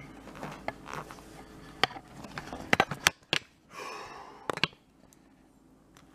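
Handling noise from a metal spoon and the camera being moved over a bowl of dry cereal: a few sharp clicks and knocks around two to three seconds in and again near four and a half seconds, with a short breathy rush between them.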